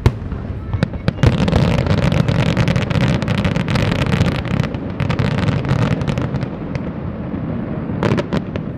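Fireworks display: aerial shells bursting with a few sharp bangs, then from about a second in a dense run of rapid reports and crackling over a low rumble for several seconds, and another cluster of sharp bangs near the end.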